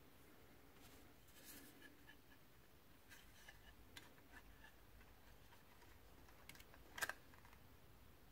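Faint clicks and light rustling as a 2.5-inch SSD in its mounting bracket is handled and lined up over a laptop's drive bay, with one sharper click about seven seconds in.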